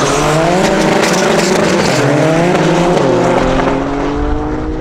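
Drag race launch: a diesel VW Golf Mk2 and a Porsche sports car accelerating hard side by side away from the start line. The engine pitch climbs and drops back at each of several upshifts, then runs on more steadily as the cars pull away.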